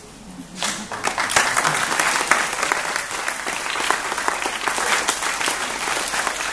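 Audience applauding: clapping starts about half a second in, builds quickly and then goes on as steady, dense clapping.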